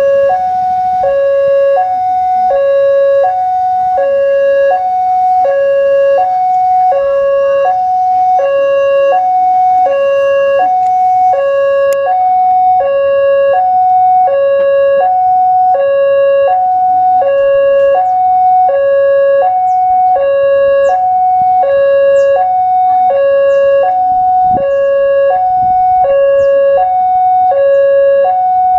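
Railway level-crossing warning alarm: an electronic two-tone signal from the crossing's horn loudspeaker, switching steadily between a lower and a higher tone about every half second. It is the warning that a train is approaching while the barriers are down.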